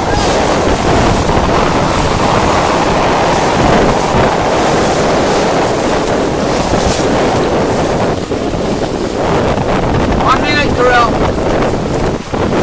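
Wind buffeting the microphone over the rush of choppy ocean water. A brief shouted call comes about ten seconds in.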